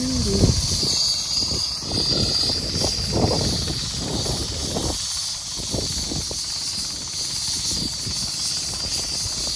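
Steady hiss of a gas-engine air compressor pumping air through a hose into a tire, with irregular low rumbles of wind buffeting the microphone.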